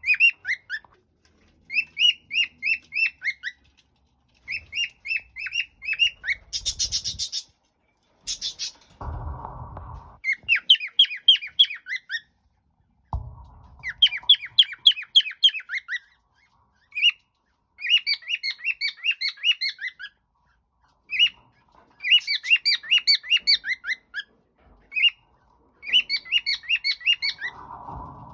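Cockatiel chirping in repeated runs of short, high, downward-sliding notes, about four to five a second, with short pauses between runs. There is a brief harsh squawk about seven seconds in.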